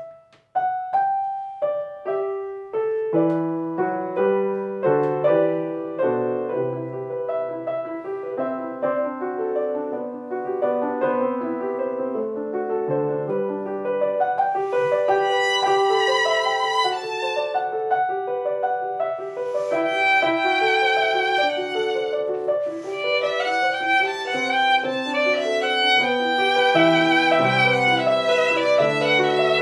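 Violin and grand piano playing a duet. The music starts suddenly at the beginning with struck, fading piano notes, and the violin carries a sustained melody with vibrato that rises into a higher register later on.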